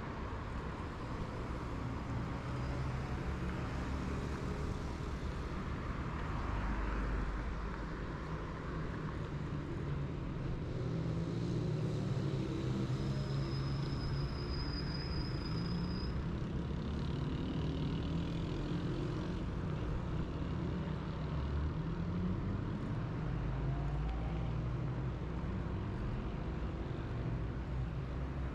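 Road traffic on a city street: a steady rumble of cars and other motor vehicles passing, with engine notes rising and falling as they go by.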